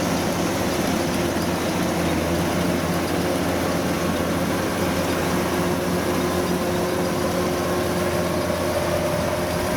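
Kubota combine harvester's diesel engine running steadily at a constant speed.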